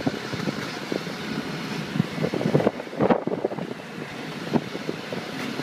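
Wind buffeting the microphone while riding in the open back of a moving vehicle, over engine and road noise, with scattered knocks and rattles. The loudest knock comes about three seconds in.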